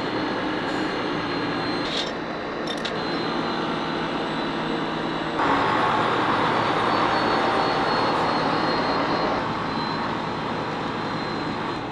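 Engine of a large crane truck running steadily. It gets louder and fuller about five and a half seconds in, and eases back about four seconds later.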